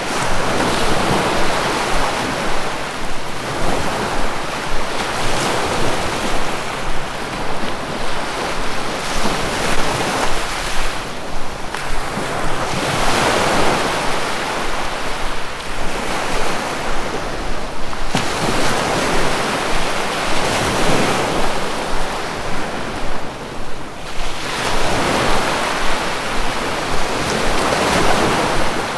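Sea waves breaking and washing on a shore, the surf swelling and falling back every few seconds in a continuous rush.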